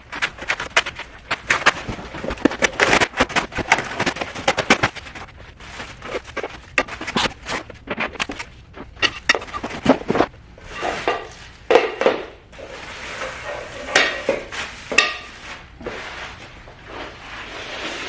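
Flat-pack furniture box being unboxed: cardboard and packing material crackle and rustle densely for about the first five seconds, then scattered rustling, scraping and light knocks as the contents are handled.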